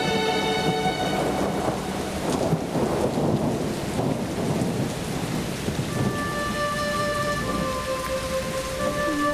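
Rain falling with thunder. Sustained background music notes fade out in the first second and come back about six seconds in.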